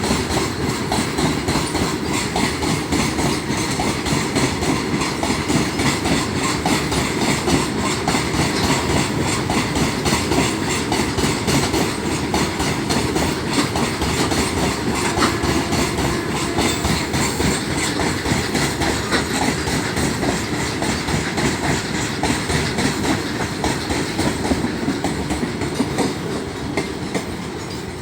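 Indian Railways train wheels running over the track, a continuous rapid clickety-clack of wheels over rail joints, easing a little near the end.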